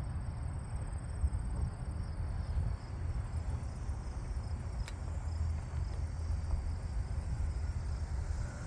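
Wind buffeting the microphone in a steady low rumble, with a faint, high, steady insect trill behind it.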